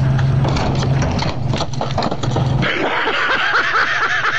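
A vehicle engine runs steadily while it pulls on a rope tied to an ice shanty's door, to tear the locked door open. About two and a half seconds in, the sound changes abruptly to a higher, warbling sound.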